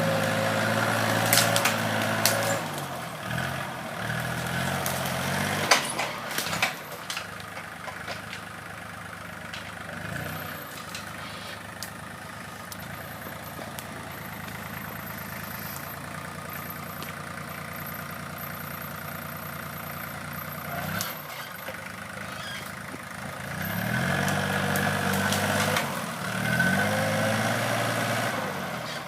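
Goldoni Euro 45 compact tractor's engine running under throttle at first, with several sharp knocks in the first few seconds. It drops to a steady idle for most of the stretch, then revs up again and falls back near the end.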